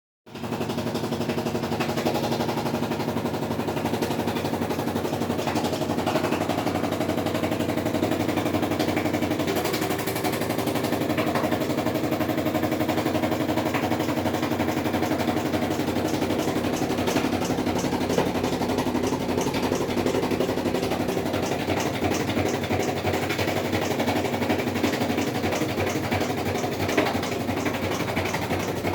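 Samsung washing machine draining, with a loud, steady, fast rattling clatter over a constant hum: the abnormal drain noise of a new machine.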